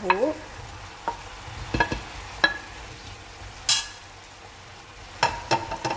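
A wooden spatula pushing fried potato cubes and tofu off a plate into a ceramic-coated frying pan of simmering sauce: a handful of separate knocks and clinks, a short scrape a little past halfway, and another cluster of knocks near the end, over a faint steady simmer.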